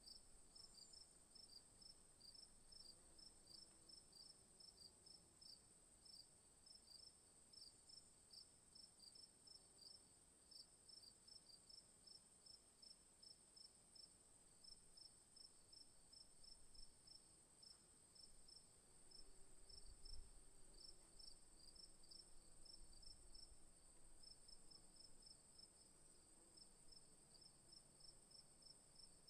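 Faint chorus of crickets and other night insects in the bush: one steady high-pitched trill, with a second insect chirping rhythmically underneath at about three chirps a second.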